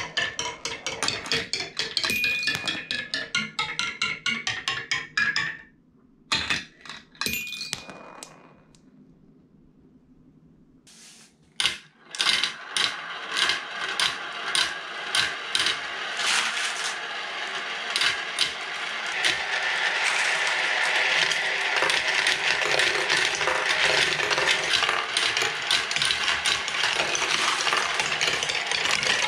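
Glass marbles running through a toy marble run. A fast stream of clicks and rattles lasts about five seconds, then comes a near-silent pause. From about twelve seconds in there are separate clicks, which thicken into a continuous clatter as many marbles roll around a plastic spiral funnel and down plastic track toward wooden Calacolo disc trees.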